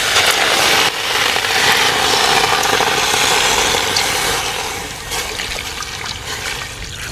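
Water pouring from a jug in a steady stream into an aluminium uruli of diced raw tapioca, splashing onto the pieces, easing off after about five seconds.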